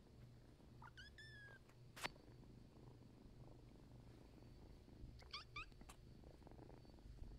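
Kitten purring, a steady low pulsing hum close to the microphone. Short rising squeaks come about a second in and twice more about five seconds in, and one sharp click comes about two seconds in.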